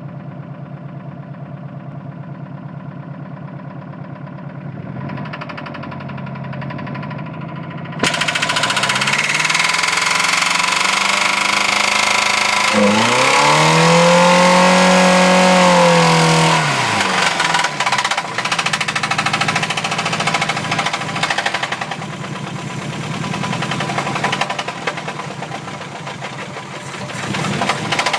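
Mazda B2000 pickup's four-cylinder engine with a bad rod knock. It idles with a fast, even knocking, then about eight seconds in it is suddenly revved hard. It climbs and falls in pitch once around the middle and keeps running loud and rough, knocking throughout.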